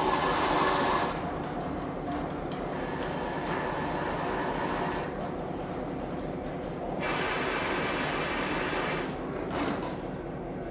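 Steam hissing from the backhead valves of Baldwin 2-10-0 steam locomotive No. 90 in three surges of a couple of seconds each, over a steady low mechanical rumble, heard inside the cab.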